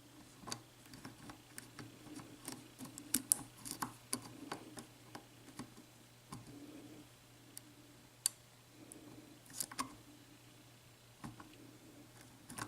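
Faint, irregular clicks and ticks of a lock pick and tension wrench working the pin stacks of a Corbin Russwin interchangeable-core lock cylinder.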